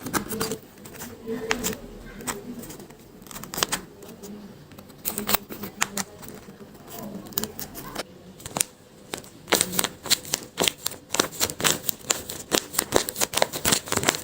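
Paper crafting by hand: a run of quick clicks and taps of paper and craft tools being handled, sparse at first and much busier in the last third.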